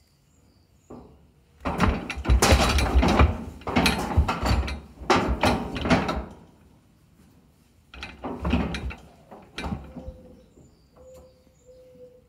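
Steel Priefert cattle squeeze chute rattling and clanking as the restrained cow shifts inside it. The rattling comes in a long run of loud bursts starting about one and a half seconds in, followed by two shorter bursts near the end.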